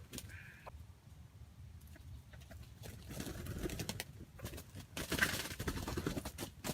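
Fowl calling and clucking in short calls, with scattered clicks and rustling, and a louder scuffle about five seconds in.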